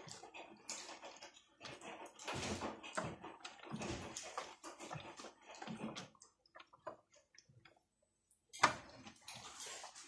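Water sloshing and splashing as the drum of a toy Miele washing machine tumbles wet socks in the rinse water. The sloshing stops for about a second near the end, then a sharp knock comes and the sloshing starts again.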